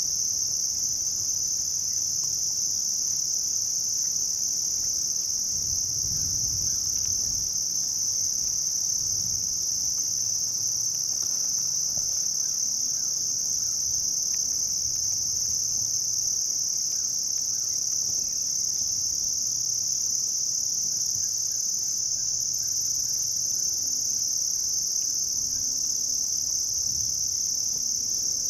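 Summer evening insect chorus: one steady, high-pitched drone that never breaks.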